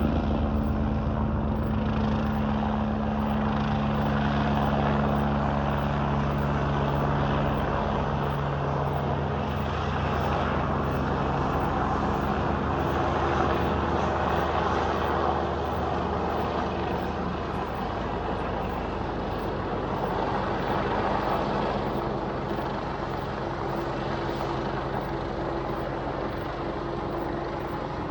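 Low-flying military helicopter passing over, its rotor and engine drone loud and steady. The low rotor hum thins out after about eight seconds, and the sound grows a little fainter toward the end as the helicopter draws away.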